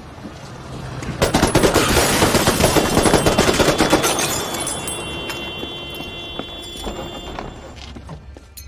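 Automatic fire from a Patchett submachine gun: rapid shots start about a second in and run for about three seconds. The echo then dies away over the next few seconds, with a few scattered clicks.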